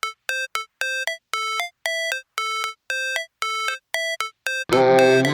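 Intro music: a pattern of short, evenly spaced notes, then a full beat with bass comes in near the end.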